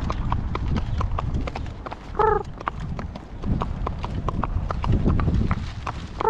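Horse's hooves clip-clopping on pavement at a walk, a steady run of sharp clicks, with a short high squeak about two seconds in.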